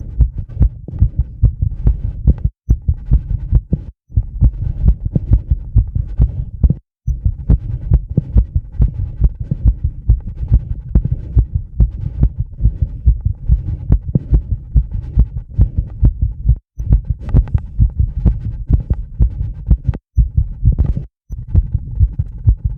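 A fast heartbeat picked up through a microphone pressed to the chest: quick, even low thumps in steady succession. It is tachycardia brought on by rebreathing the same air from a bag, a mild CO2 buildup. The sound cuts out briefly several times.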